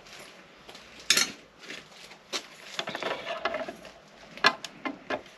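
Scattered clicks and metallic clinks of hand tools and screws being handled while a motorcycle headlight is unbolted, with the loudest clatter about a second in.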